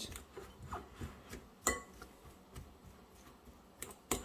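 Fork mashing boiled potatoes in a glass bowl: quiet squashing and scraping with light clicks of the metal tines against the glass, two of them sharper, about halfway through and near the end.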